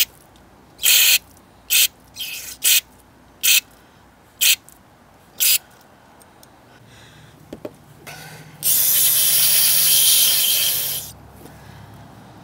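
An aerosol can of carburetor cleaner spraying into the orifice of a diesel NOx sensor to flush out remaining carbon. It gives a run of short squirts, about one a second, over the first six seconds, then one long spray of about two seconds near the end.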